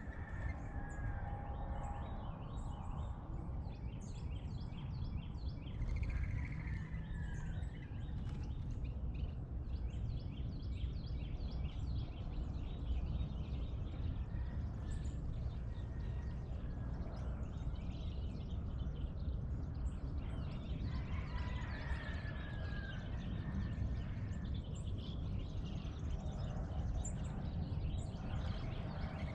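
Dawn chorus of songbirds chirping and calling over a steady low rumble, with many short high chirps throughout and clear down-slurred whistled phrases twice.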